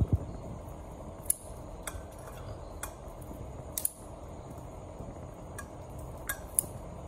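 Kitchen scissors cutting through the shell of a grilled giant river prawn over a ceramic plate: a scattering of sharp snips and clinks, roughly one a second, at irregular intervals.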